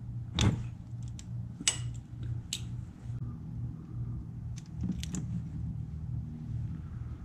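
A socket wrench clinking against metal as oil drain bolts are undone under a motorcycle engine: a handful of short, separate clicks over a steady low hum.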